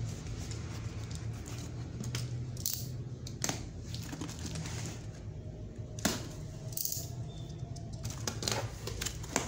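Hands opening a taped cardboard shipping box: scattered sharp clicks and rustles of cardboard flaps and paper, over a steady low hum.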